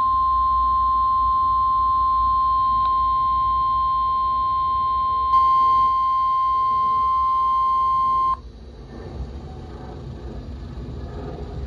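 NOAA Weather Radio 1050 Hz warning alarm tone, heard through a weather radio's speaker: one steady high tone that cuts off sharply about eight seconds in. It is the signal that a flood watch alert follows. Faint radio hiss comes after it.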